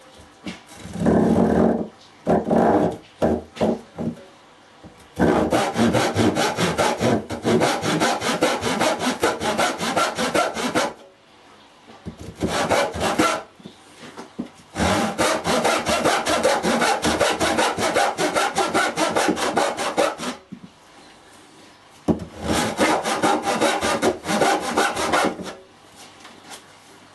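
Hand saw cutting into a wooden post with quick back-and-forth strokes, sawing the shoulder cuts for a lap joint. A few short starting strokes, then several long runs of steady sawing with short pauses between them.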